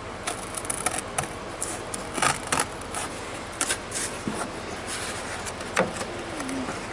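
Scissors snipping through a cardboard template in irregular cuts, then the cardboard rubbing and scraping as it is handled and pressed against the car's pillar opening.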